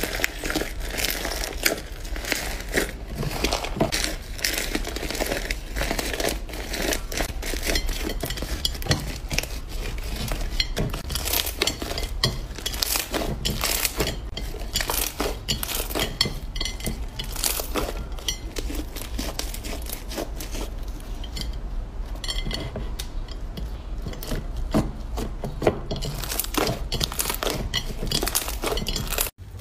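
Purple slime squeezed and kneaded by hand in a dish, giving rapid, irregular sticky pops and crackles over a steady low hum.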